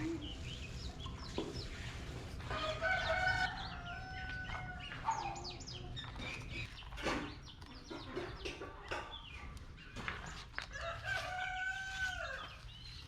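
Chickens clucking and chirping, with a rooster crowing twice: once a few seconds in and again near the end.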